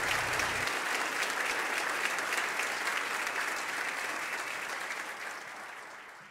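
Audience applauding, dense steady clapping that fades away near the end.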